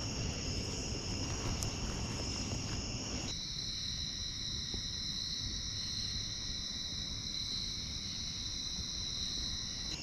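Steady chorus of night insects trilling continuously. About three seconds in it changes abruptly to a different chorus with one strong, steady higher note, and a low rumble of noise under the first part stops at the same time.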